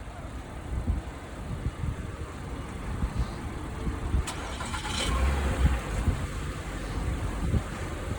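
Street traffic: a car engine's low rumble, with a brief louder rush of noise a little before the middle, like a vehicle going by.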